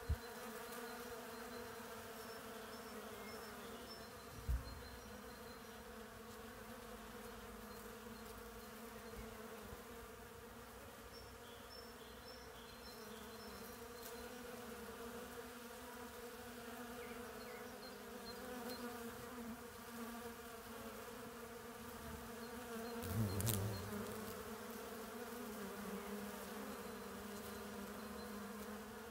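Honeybees and a violet carpenter bee buzzing steadily as they forage among blossoms, an even insect hum. About four and a half seconds in there is a single short knock, and about three quarters of the way through a louder, deeper buzz swells briefly as a bee passes close.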